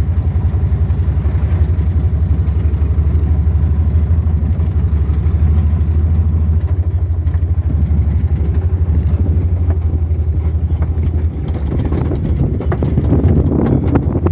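Vehicle engine running steadily with a deep low hum while driving, with a few rattles near the end.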